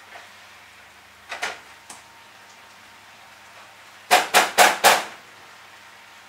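A spatula stirring pasta in a frying pan, then knocked four times in quick succession against the pan about four seconds in; the knocks are sharp and the loudest sound here. A fainter scrape of stirring comes earlier.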